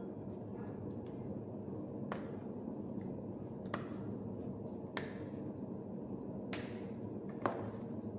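About five sharp clicks and taps, a second or so apart, from plastic spice shakers being handled and shaken, over a steady low background rumble.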